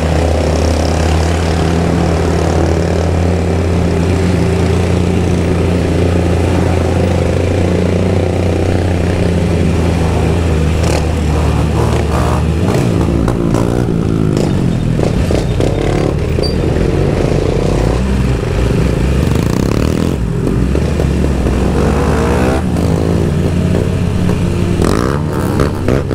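BMW S1000RR sport bike's inline-four engine running at a steady cruise, fitted with no exhaust end can, heard from on the bike with wind rush. About halfway through the engine note drops, then rises and falls with the throttle.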